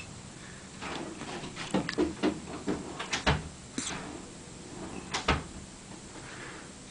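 Hiccups: two sharp hiccups about two seconds apart, among softer clicks and rustling.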